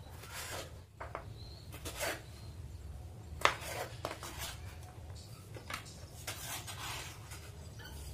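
Kitchen knife slicing green grapes on a wooden cutting board: irregular soft taps of the blade on the board, with one sharper knock about three and a half seconds in.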